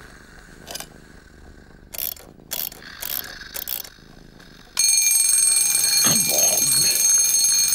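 Wind-up twin-bell alarm clock: a few light clicks, then about three-quarters of the way in the bell suddenly starts ringing loudly and keeps ringing without a break.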